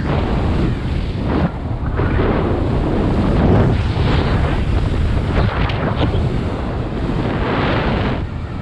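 Wind buffeting the camera microphone of a skydiver descending under an open parachute canopy: a loud rushing that swells and eases in irregular gusts.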